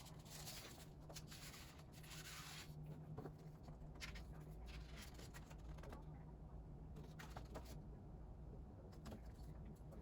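Faint rustling and scratching of hands handling album packaging and cards, mostly in the first three seconds, then scattered light clicks. A steady low hum runs underneath.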